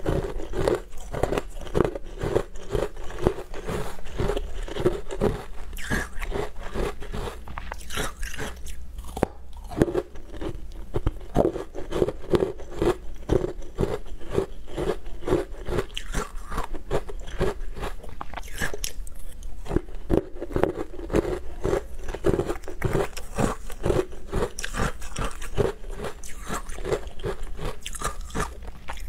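Close-up crunching and chewing of frozen food coated in green powder, a steady run of rapid crunches, a few a second.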